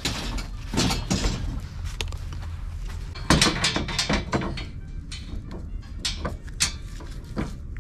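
Plastic folding camp table with metal legs being folded down: irregular clicks, rattles and knocks as the legs and latches are worked, with a cluster of knocks about three to four seconds in, over a steady low rumble.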